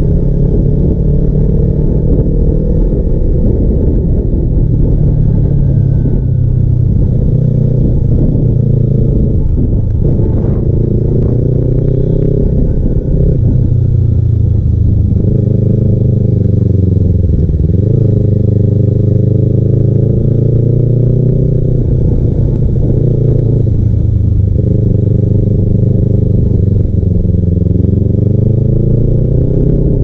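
Kawasaki Ninja 300's parallel-twin engine through a custom aftermarket exhaust, heard from on board while riding. Its pitch dips and climbs again several times as the throttle is eased and reopened.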